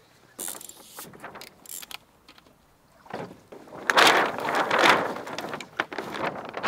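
Stiff film sail of a small trimaran rustling and crackling as it is handled and hoisted, briefly about half a second in and then loudly for about three seconds in the second half, with a few sharp clicks of rigging in between.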